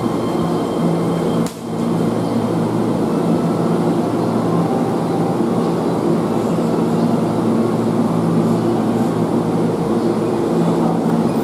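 Keihan electric train standing at a station platform, its air conditioning and on-board equipment giving a steady, loud hum. There is a brief drop in level about a second and a half in.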